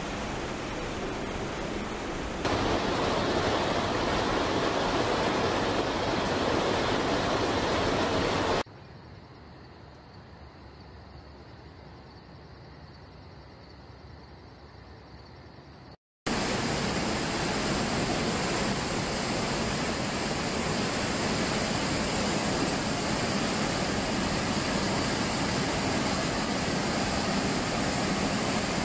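Fast, muddy floodwater rushing in a swollen river: a steady rushing noise. It steps louder and quieter at several cuts, with a quieter stretch in the middle and a brief dropout about halfway through.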